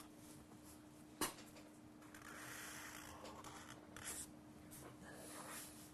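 Pen drawing on paper: faint scratching strokes of the pen tracing outlines, with a small tap about a second in.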